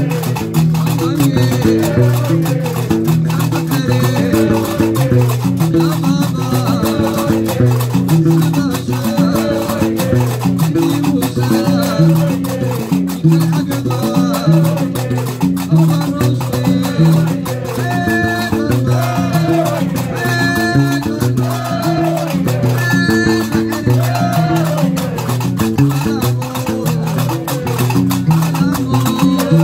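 Algerian diwan music: a gumbri's repeating plucked bass line under fast, continuous clacking of qarqabou iron castanets.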